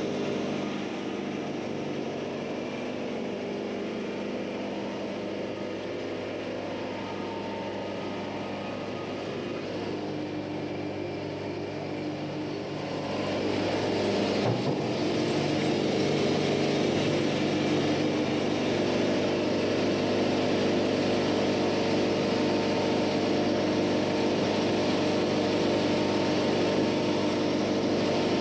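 Diesel engine of a Wood-Mizer LT-70 band sawmill running steadily, getting louder about halfway through.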